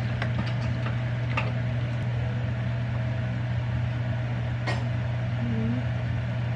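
A steady low mechanical hum, like a kitchen appliance or fan running, with a couple of light knocks from ingredients going into the blender jar.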